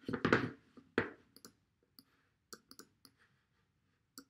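Scattered light clicks and taps of a computer mouse and keyboard, irregularly spaced, the loudest in the first second.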